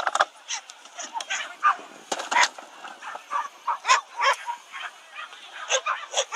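A dog barking over and over, in a fast, irregular string of short, sharp barks.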